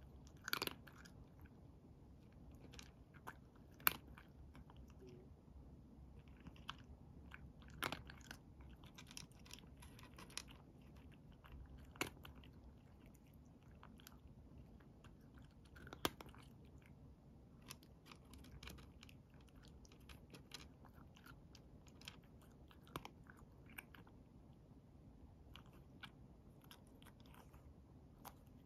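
A cat chewing dry kibble: quiet, irregular crunching with a few sharper, louder crunches.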